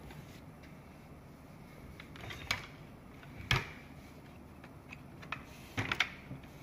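A few sharp clicks and knocks as a cordless circular saw is handled: single clicks about two and a half and three and a half seconds in, then a quick cluster of clicks near the end.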